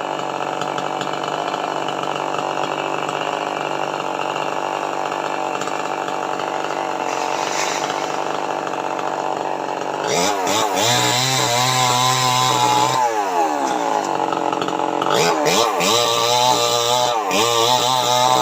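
Chainsaw engine running steadily for about ten seconds, then revved up and down several times, with a sustained high-revving stretch in between.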